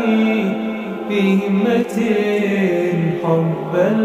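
Background music: an Arabic nasheed, voices singing a slow melody with long held notes over a steady low drone.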